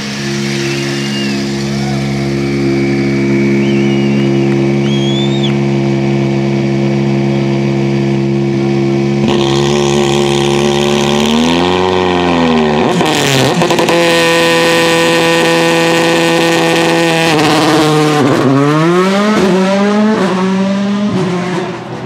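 Volkswagen Polo R WRC's 1.6-litre turbocharged four-cylinder engine idling steadily while stationary, then revved: one rise and fall about twelve seconds in, a higher held speed after that, and several quick blips rising and falling near the end.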